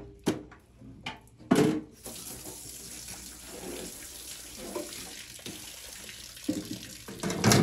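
Two sharp knocks in the first couple of seconds, then tap water running steadily into a stainless steel sink as a skinned rabbit is rinsed under it.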